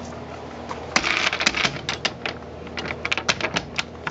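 A hand working a black metal barrel-bolt latch on a wooden door: a quick, irregular run of sharp metallic clicks and rattles starting about a second in.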